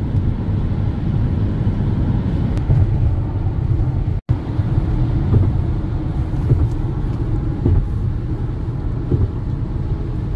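Steady low road and engine rumble of a car driving on a highway, heard from inside the cabin. The sound cuts out for an instant about four seconds in.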